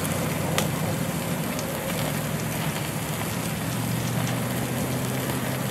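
Steak sizzling and crackling on a propane grill, with a few small pops, over a low steady hum.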